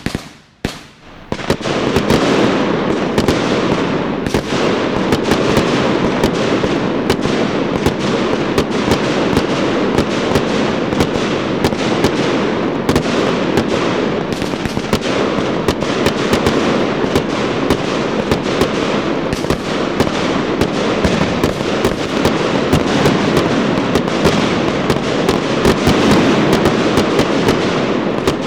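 Fireworks display: a sharp bang, then from about a second and a half in a dense, unbroken barrage of rapid pops and crackling.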